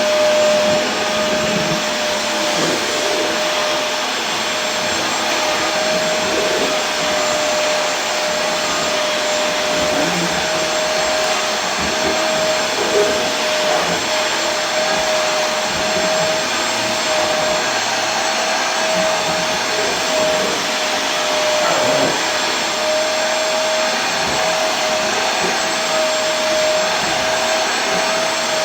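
Vacuum cleaner motor running steadily, a dense even rush of air with a constant hum on one pitch.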